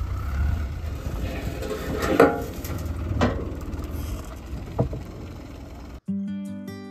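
Small dump truck's engine running with a steady low rumble as the truck pulls away from a freshly tipped gravel pile, with a few knocks from the truck about two, three and five seconds in. Acoustic guitar music cuts in near the end.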